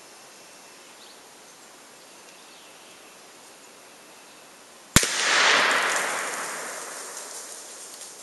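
A shotgun slug shot heard from the target end, 100 yards downrange: a sudden sharp crack about five seconds in as the 3-inch Winchester Partition Gold slug hits the target, then the shotgun's report rolls in and fades away over about three seconds.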